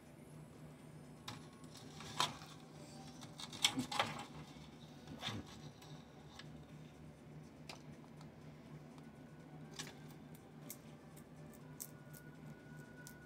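Faint handling noises from a clear plastic feeder cup and a bearded dragon being picked up: a cluster of sharp clicks and taps in the first few seconds, then scattered light ticks, over a low steady hum.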